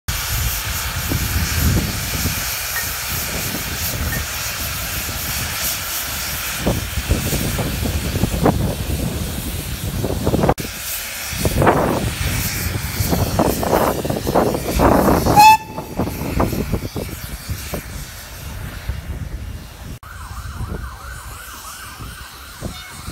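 Small vertical-boiler steam locomotive hissing steam and chuffing as it works. The sound grows louder with irregular puffs over a few seconds in the middle, cuts to a quieter stretch as the engine moves farther off.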